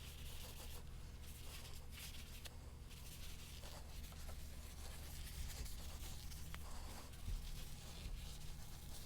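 Faint, irregular scraping and rubbing, with a soft knock about seven seconds in, over a low steady hum.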